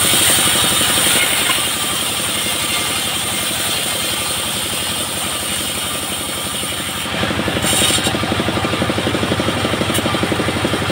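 Single-cylinder diesel engine driving a bandsaw mill, chugging steadily with an even beat, under a high hiss from the saw for about the first seven seconds that comes back briefly near the end.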